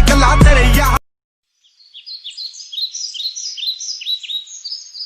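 A song with rap vocals plays for about a second and cuts off abruptly. After a short silence, small birds chirp over and over, in quick high downward-sweeping notes.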